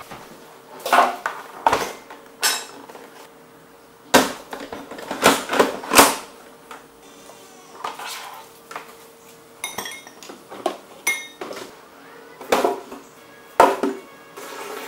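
Clunks and clatter of kitchen things being handled and set down on a wooden table while a countertop blender is set up and its plastic jar loaded: about a dozen separate knocks and clinks, the blender not yet running.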